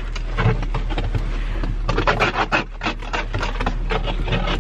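Ice scraper scraping snow and ice off a car windshield in repeated rough strokes, heard from inside the car.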